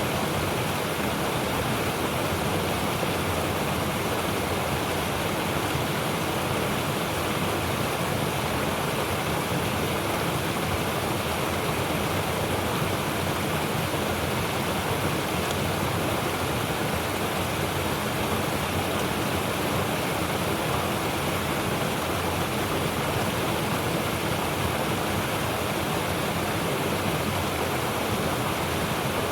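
Mountain river rushing steadily over rocks, with a deep low rumble under the hiss of the water.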